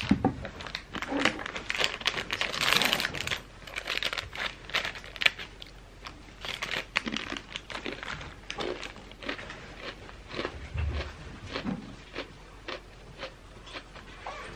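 A wrapper crinkling and rustling as it is handled, in irregular crackles that are densest about two to three seconds in.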